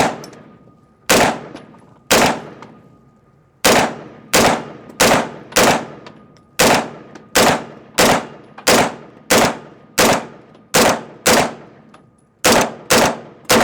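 A 9mm blowback AR-pattern pistol-caliber carbine fires about eighteen semi-automatic shots. A few spaced shots come first, then a steady string of about one and a half shots a second. Each report rings off briefly. The rifle is feeding reliably from a Mean Arms Endomag.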